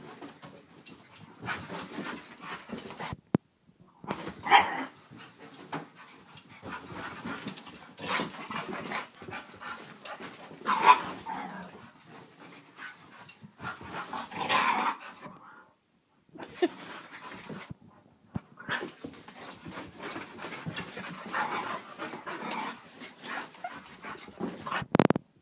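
Two dogs, a pit bull and a Chinese crested, at play, making dog noises in irregular bursts a second or two long with brief pauses between them, and a sharp thump near the end.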